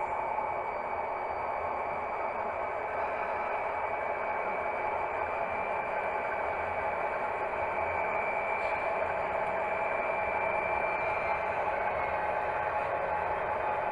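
Model railway locomotive running, its motor and gearing giving a steady mechanical hum with a high whine, heard close up from a camera riding in the cab.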